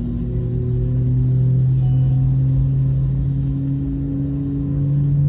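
Airbus A321neo's CFM LEAP-1A turbofan engine spooling up during start, heard inside the cabin as a low hum with several tones slowly rising in pitch.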